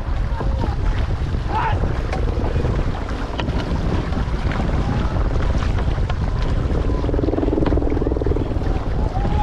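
Water rushing and splashing along an outrigger canoe's hull as the crew paddles at race pace, with heavy wind buffeting on the microphone making a steady low rumble.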